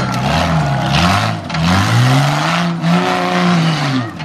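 1999 Jeep Cherokee's engine revving hard as the truck crawls over a course of logs. The pitch climbs about a second in, holds high, then falls away just before the end, over a steady rush of tyre and dirt noise.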